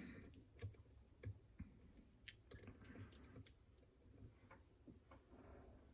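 Faint, irregular clicks of a lock pick and tension tool working inside a Caniss tubular padlock as it is picked back to locked.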